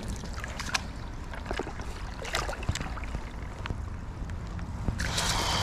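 Water splashing as a hooked smallmouth bass thrashes at the surface and is scooped into a landing net. The splashing gets louder near the end.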